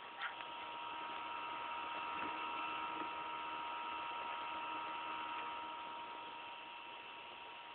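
Steady electronic whine of a few high tones over a hiss, with a brief click just after the start.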